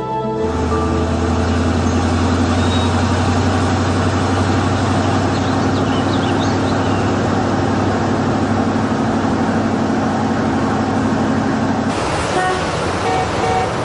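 A motor vehicle's engine running with a steady low drone. About twelve seconds in it cuts off abruptly, giving way to lighter street traffic noise.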